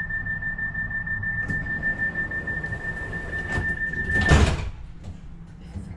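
Metrolink tram doors closing: a steady high-pitched door warning tone sounds over the low hum of the stationary tram, stops about four seconds in as the sliding doors shut with a loud thud.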